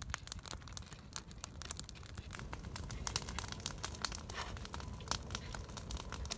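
A knife slicing a peeled banana into pieces that drop into cut-open drink cans: a run of small irregular clicks and crinkly rustling.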